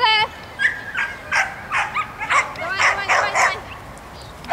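Dog barking over and over, about two barks a second, with a short high wavering whine at the start.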